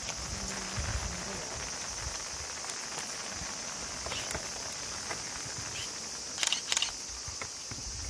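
A steady, high-pitched drone of insects calling, with two short sharp scuffs about six and a half seconds in.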